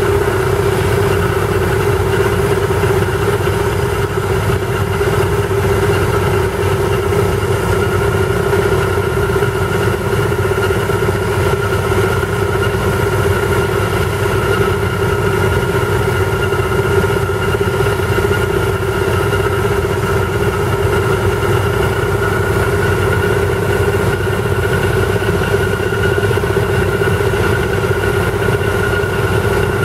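Steady, unchanging drone of a portable diesel air compressor and the pneumatic rock drill rigs it feeds, running together under load while the drills bore into the slope.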